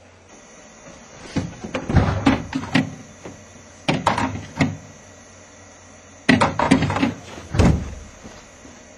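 Knocks and thuds of a door or cupboard being handled, in three short bunches about a second and a half in, four seconds in, and six and a half seconds in.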